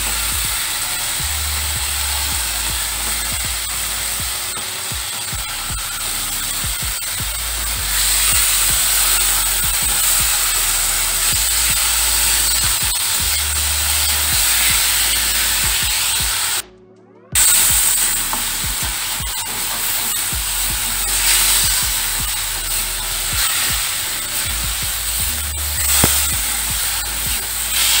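Soaked moong dal sizzling in hot oil and spice masala in a metal kadai, stirred and scraped around the pan with a metal spatula. The sound cuts out for about half a second a little past halfway.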